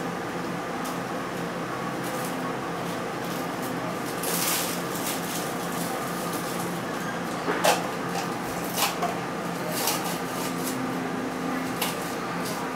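Inside a railway passenger coach as it starts rolling slowly: a steady hum of the coach's air-conditioning and equipment. A short hiss comes about four seconds in, followed by a few scattered clicks and knocks from the coach.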